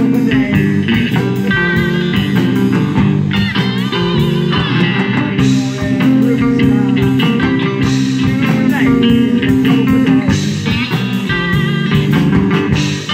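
Live electric blues band playing an instrumental passage: electric guitars over a steady drum beat, with a lead guitar playing bent, wavering notes.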